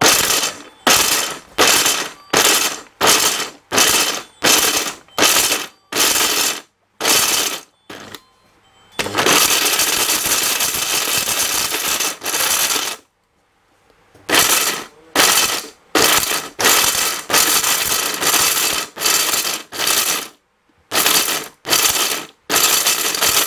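1000-watt Orange 'Jumbo' blender with a copper motor, pulsed in short bursts about twice a second, grinding whole dried turmeric roots, the hard pieces rattling in the stainless steel jar. About halfway through it runs without stopping for about four seconds, stops briefly, then goes back to short pulses.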